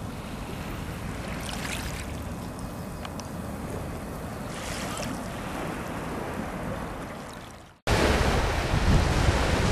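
Gentle lapping of shallow seawater, then, after a sudden cut about eight seconds in, louder sea waves washing onto the shore, with wind on the microphone.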